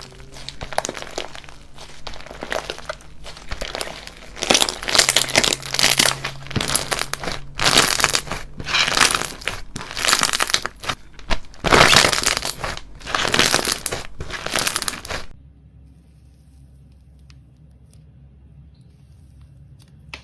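Crunchy slime being worked, crackling and crinkling in quick, irregular bursts. It stops abruptly about fifteen seconds in, leaving only faint background noise.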